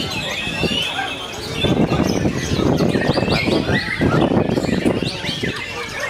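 White-rumped shama singing a rapid, varied run of whistles and chirps. Other noise runs underneath it.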